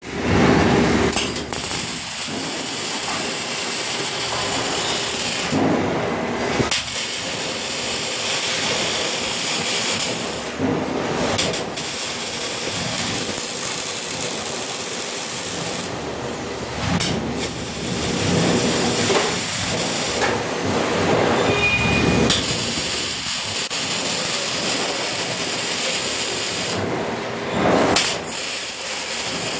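Robotic arc welding: the arc gives a steady, loud hissing crackle, with several short breaks where the arc stops between welds.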